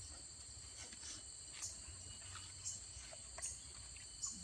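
Steady high-pitched drone of insects from the surrounding vegetation, with a few faint scattered ticks.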